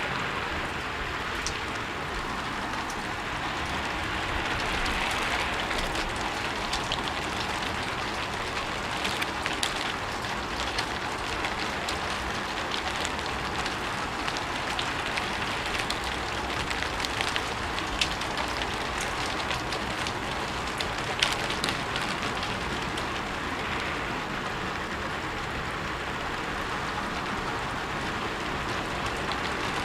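Steady rain falling on a rooftop: an even hiss with scattered sharper ticks of individual drops striking.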